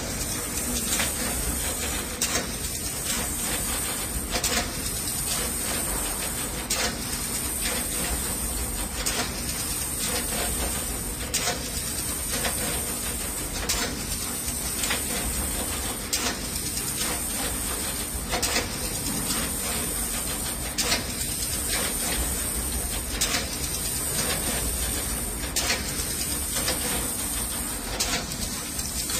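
PCB through-hole auto insertion machine running: a steady hiss with repeated mechanical clicks, a stronger click about every two seconds.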